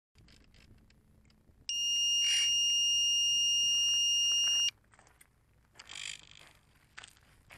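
Flight controller buzzer on an RC plane running Arduplane sounding one steady, high-pitched beep of about three seconds: the arming tone, signalling the motors are armed and ready for takeoff.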